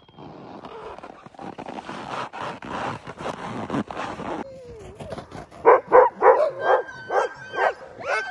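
Sled dogs barking and yelping excitedly. First comes a dense, rough din of many dogs together. From about five and a half seconds in, loud, sharp, high yips follow at about three a second, with a thin whine running under them.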